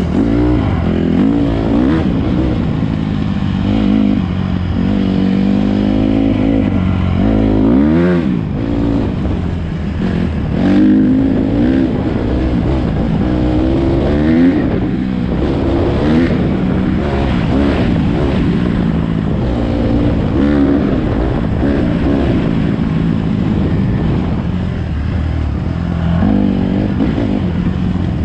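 Honda CRF150RB dirt bike's four-stroke single-cylinder engine revving up and down as it is ridden hard, its pitch repeatedly climbing and dropping with throttle and gear changes. The sharpest rise and fall in revs comes about eight seconds in.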